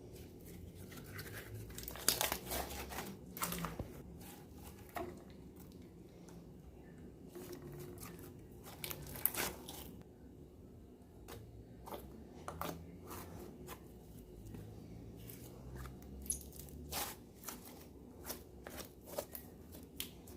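Homemade slime being squeezed and stretched by hand, giving scattered crackles and clicks in irregular clusters.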